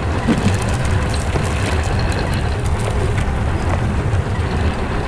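Excavator's diesel engine running with a steady low rumble, with scattered short clicks over it.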